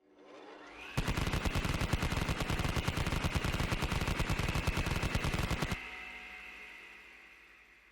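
Machine gun sound effect. A whine rises in pitch for about a second, then a long burst of very rapid shots runs for about five seconds over the steady whine, which fades away slowly after the firing stops.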